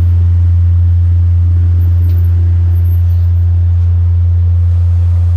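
HF Audio ASW 118A 18-inch subwoofer reproducing an 86 Hz test tone, turned up loud: one steady, unchanging low tone.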